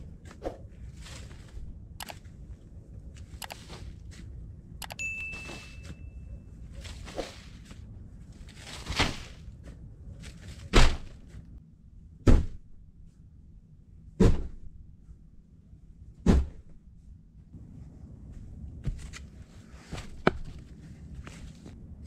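Shovelfuls of earth being scooped and thrown onto a dugout's log-and-tarp roof, with a shovel scraping into soil. Midway, five heavy thuds land about every one and a half to two seconds.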